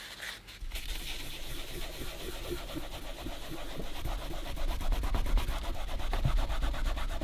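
Scrubbing grime out of the creases of a radio case's grained leather-look covering with sugar soap: fast back-and-forth rubbing strokes that start about half a second in and grow a little louder.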